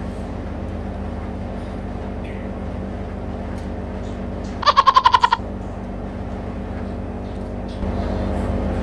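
A short, fast chirping call about halfway through, about eight quick pulses in under a second, over a steady hum.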